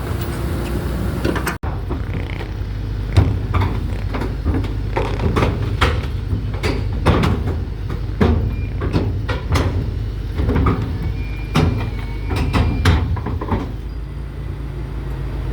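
Heavy diesel engine of a drilling rig running steadily under a stream of irregular metallic clanks and knocks as the rig is moved onto a lowbed trailer.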